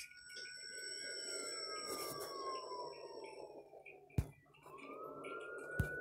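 A siren-like tone that rises quickly, sinks slowly for about four seconds, and rises again near the end, over a steady hiss. A sharp click about four seconds in breaks it off.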